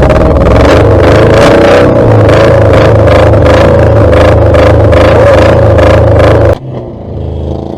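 Junk cars racing flat out on a dirt track, engines running at full throttle, so loud the recording is overloaded and distorted. The sound cuts off suddenly about six and a half seconds in, leaving quieter engine noise.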